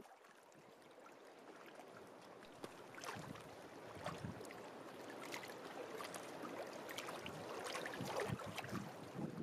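Water lapping and gurgling, with small irregular splashes, gradually growing louder.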